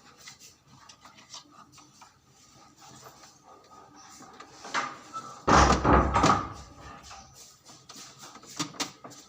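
Knocks, clicks and scrapes of a movable full-motion TV wall mount being swung and rotated, with a louder cluster of clunks about five and a half seconds in.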